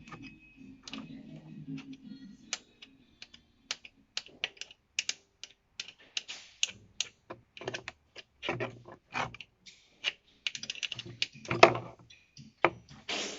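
Irregular clicks and knocks of hand tools on metal as the primary drain plug of a Harley-Davidson Sportster is worked loose, with one louder knock near the end.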